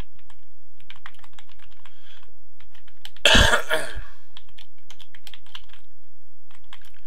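Typing on a computer keyboard, keystrokes in quick clusters, with a short cough about three seconds in that is louder than the typing.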